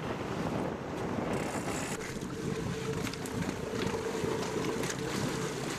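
Sport-fishing boat's engine running under wind buffeting on the microphone, with a steady tone joining about two seconds in.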